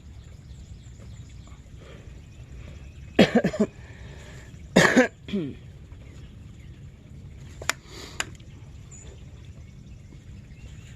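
Two short, loud vocal calls about a second and a half apart, each falling in pitch, then two faint clicks.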